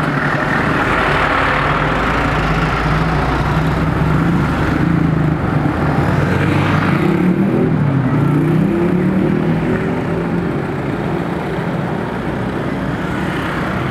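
Road traffic passing close by: a heavy truck's engine running, its pitch wavering and dipping about eight seconds in.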